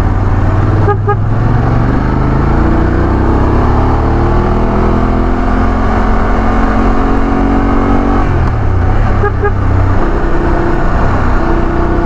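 BMW F 850 GS parallel-twin engine running on the road, its pitch climbing steadily as it accelerates and dropping back about eight and a half seconds in, over a low wind rumble. Two quick double beeps sound about a second in and again near nine seconds.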